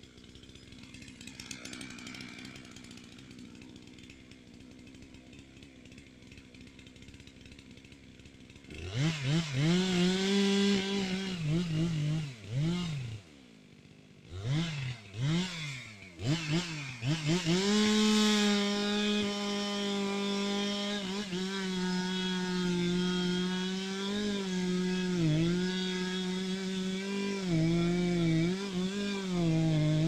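Two-stroke chainsaw revved in several short bursts starting about nine seconds in, then held at steady high revs from about eighteen seconds on while cutting into the base of a tree trunk during felling.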